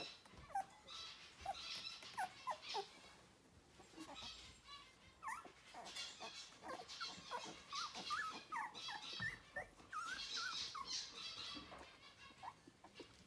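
Newborn golden retriever puppies, eyes just beginning to open, squeaking and whimpering. Many short, high chirps rise and fall in pitch, a few at first and coming thick and fast from about halfway through.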